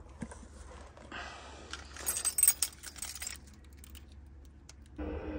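A bunch of car keys on a key fob jangling in a hand, with a cluster of bright metallic clinks about two to three seconds in. Near the end a steady hum starts suddenly.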